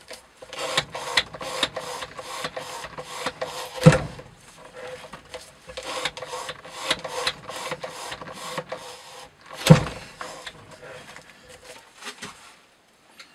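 Hand-operated knife-testing rig working in repeated short scraping, clattering strokes, about two a second, with a heavy knock about 4 seconds in and another about 10 seconds in. The strokes thin out and stop near the end.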